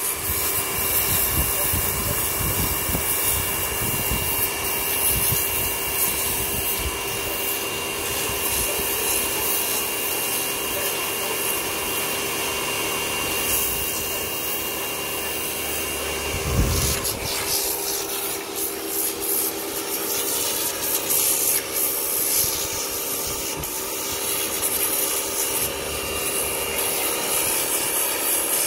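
Kärcher pressure washer running, its water jet hissing steadily against a pike's scales to strip them off, with the pump's hum underneath. A thin high whine drops out a little past halfway.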